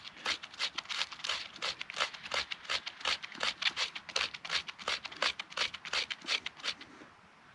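A bushcraft knife blade scraping birch bark in quick short strokes, about four or five a second, stopping about seven seconds in. The bark is being scraped into fine tinder for lighting a fire.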